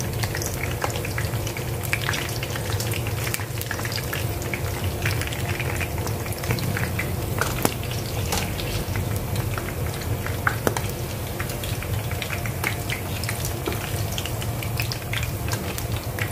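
Sausages frying in shallow hot oil in a nonstick pan: a steady sizzle full of small pops and crackles. Metal tongs clack now and then as the cooked sausages are turned and lifted out.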